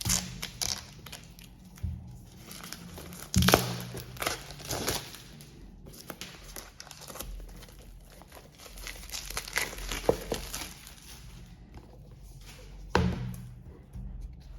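Trading-card pack wrappers crinkling and tearing open, an irregular run of rustles with several sharp crackles, the loudest about three and a half seconds in and again near the end.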